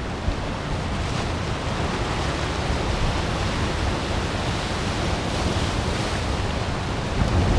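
Ocean surf washing and breaking over a rocky lava shoreline, a steady rush with wind on the microphone adding a low rumble. It swells a little near the end.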